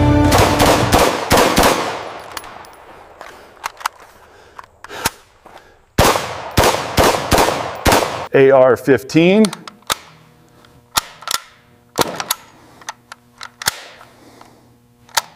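AR-15-style rifle gunfire. A rapid string of shots with an echoing tail comes at the start, another cluster of quick shots follows around six to eight seconds in, and single sharp reports or clicks are spaced out toward the end.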